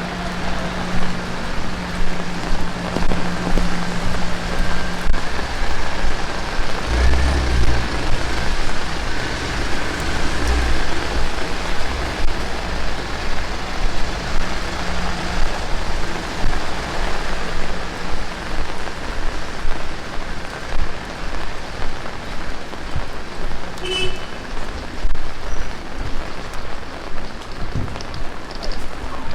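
Heavy rain falling and pattering on surfaces in a steady dense hiss. A motor vehicle runs nearby with a steady low hum, and there is a deeper rumble from about seven to eleven seconds in.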